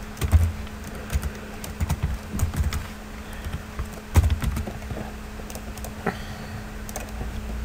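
Typing on a computer keyboard: a quick run of keystrokes for about three seconds, a louder click about four seconds in, then a few scattered clicks, over a steady low hum.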